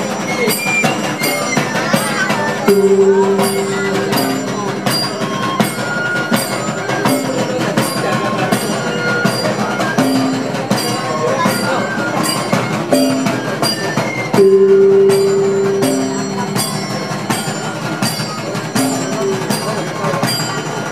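Javanese palace soldiers' marching band music: a steady drumbeat with recurring gong-like strokes and a shrill wind melody, with two longer held notes, about 3 and 14 seconds in, over crowd chatter.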